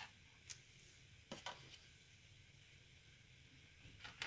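Near silence with a few faint clicks of small CPU-cooler mounting parts being handled and set onto the bracket posts.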